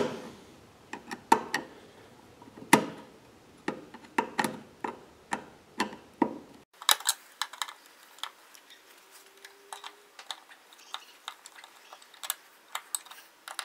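Screwdriver turning the mounting screws of light switches into a metal gang box: irregular small clicks and ticks, fainter after about seven seconds.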